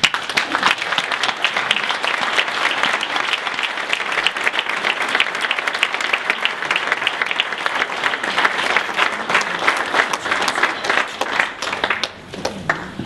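Audience applauding in a hall, a dense clapping that dies away near the end.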